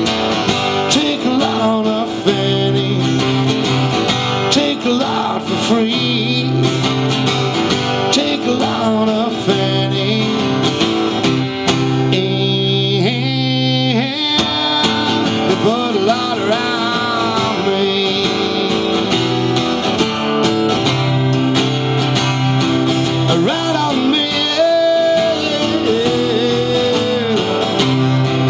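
Acoustic guitar strummed through a country-style song, with a man's voice singing over it in places.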